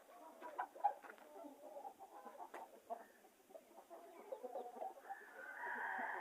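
Chickens clucking with many short, low calls, then a louder drawn-out call from about five seconds in.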